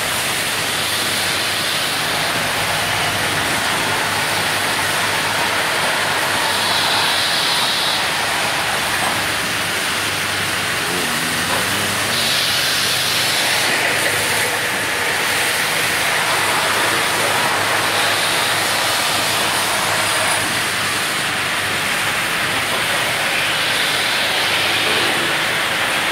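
Factory-floor din from rows of automatic valve-body machining machines running together: a steady, even noise with a lot of hiss. Brief stronger hisses stand out every several seconds.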